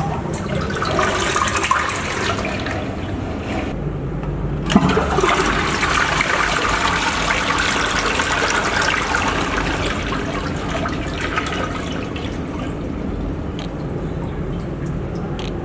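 Rushing, gurgling water, with a sudden knock about five seconds in, then a stronger surge that slowly dies down.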